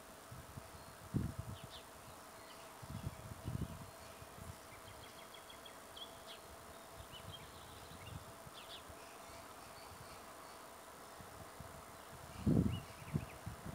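Quiet outdoor ambience with a faint steady hum, a few short bird chirps, and low rumbling gusts of wind on the microphone about a second in, around three seconds in, and near the end.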